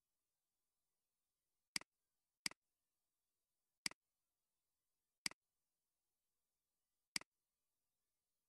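Five sharp computer mouse clicks, unevenly spaced, against near silence.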